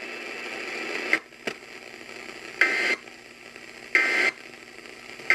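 Weather radio Emergency Alert System end-of-message data bursts: three short, warbling two-tone digital chirps about 1.3 seconds apart over steady radio hiss, marking the end of the warning.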